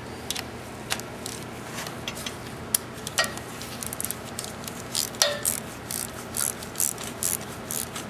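Ratchet wrench clicking in short, uneven runs while loosening the nut that holds the coolant flange on its stud.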